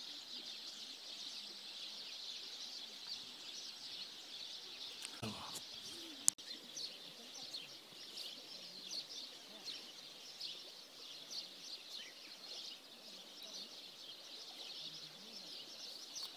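A chorus of small birds chirping continuously, many short high chirps overlapping. A single sharp click cuts through just after six seconds in.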